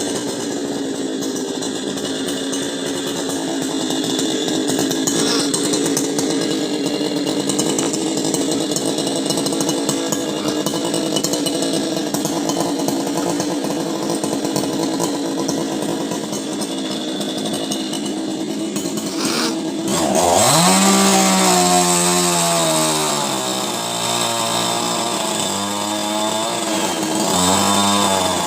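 Two-stroke chainsaw running at a steady speed. About two-thirds of the way in it revs up sharply, then its pitch sags and rises several times, with another rev near the end.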